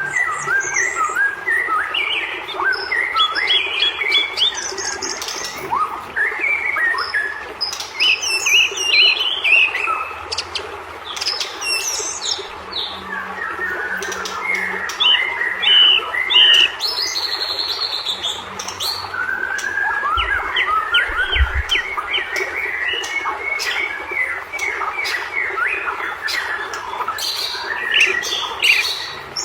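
White-rumped shama (murai batu) singing in an agitated, non-stop run of fast chirps, whistled sweeps and harsh squawking notes, with sharp clicks between phrases.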